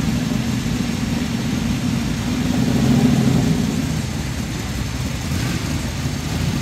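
Engines of several classic cars idling as they crawl forward in a queue: a deep, steady rumble that swells briefly about three seconds in.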